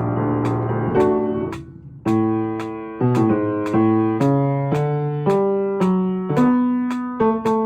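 Piano being played as practice: held chords, a brief break about two seconds in, then a string of separate notes and chords struck about two a second, each dying away.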